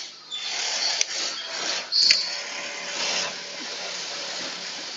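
Industrial three-needle cylinder-bed sewing machine running, stitching dust-bag fabric: a steady mechanical whir, with two sharp clicks about one and two seconds in.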